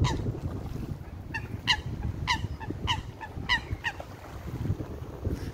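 A goose honking repeatedly: a run of short honks about every half second that stops about four seconds in, over wind rumbling on the microphone.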